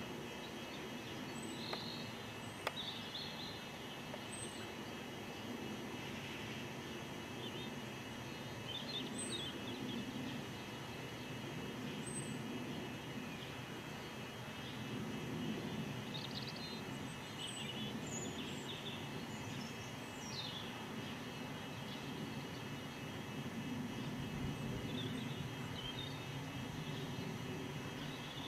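Steady low outdoor background rumble, with a few short, high chirps of small birds scattered through.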